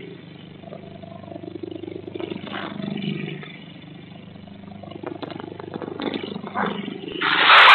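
A steady low motor-like hum with faint scattered noises. About seven seconds in there is a sudden loud burst of high-pitched yelping: a dog crying out as a leopard lunges at it.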